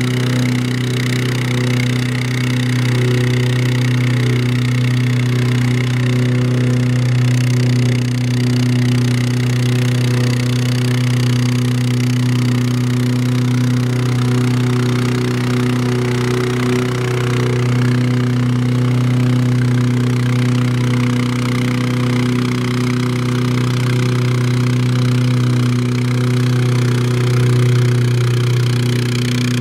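Vibratory plate compactor running steadily as it tamps a layer of sand, a constant engine-and-vibration hum.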